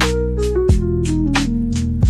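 Background music: a melody of held notes stepping down in pitch over a steady drum beat.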